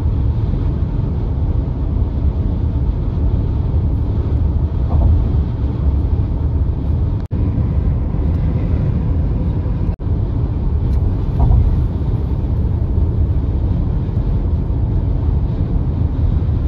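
Steady low rumble of a car driving at speed, tyre and engine noise heard from inside the cabin. It cuts out abruptly twice, for a split second each time.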